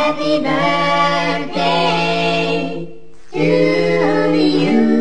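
Vocal music sung a cappella, voices holding long notes in phrases, with a short break about three seconds in before the singing resumes.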